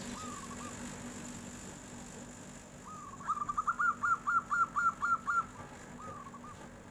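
Zebra dove (perkutut) cooing in its clear, flute-like voice: a short rolling coo near the start, then a quick run of about nine bright notes at roughly four a second in the middle, and another short coo near the end. A steady faint hum runs underneath.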